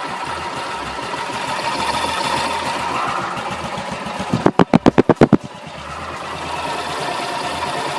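Freshly reassembled Suzuki AN125 scooter's small single-cylinder four-stroke engine running at idle on its first start-up. About halfway through comes a rapid burst of about eight loud thumps lasting about a second, before the steady idle resumes.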